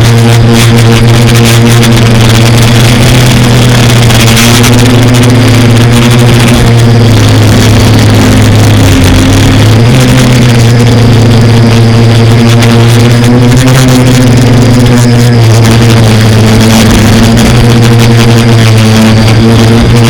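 Quadcopter's electric motors and propellers running in flight: a loud, steady buzzing hum whose pitch dips briefly about halfway through as the throttle eases, then settles back.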